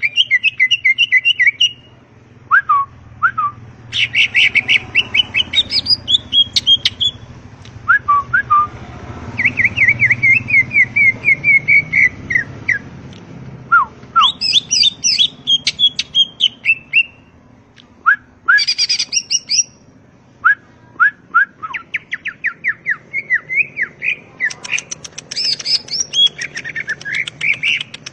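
Green leafbird (cucak ijo) singing a long, varied song: bursts of rapid repeated whistled and chattering notes, separated by short pauses and by single sharp down-slurred whistles.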